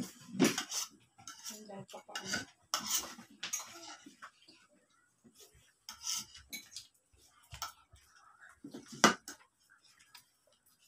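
Metal spoons clinking and scraping against plates as several people eat, in irregular taps, with a sharper clatter about nine seconds in.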